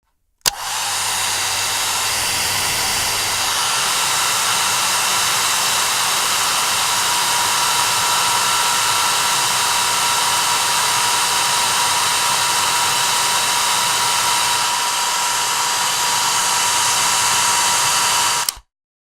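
Hair dryer switched on with a click, blowing steadily with a rushing noise and a steady whine from its motor, then switched off so that it cuts off suddenly near the end.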